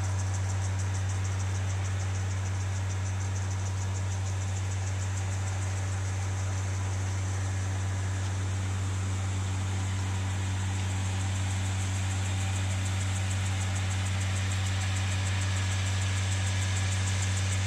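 A steady, unchanging low mechanical hum, like a motor or engine running at constant speed, over a steady hiss.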